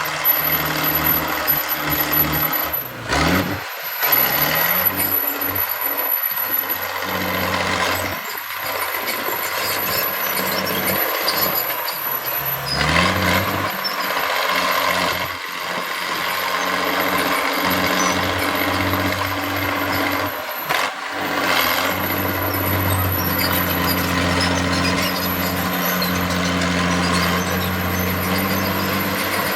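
Heavy diesel engine of earthmoving machinery running under load, revving up twice.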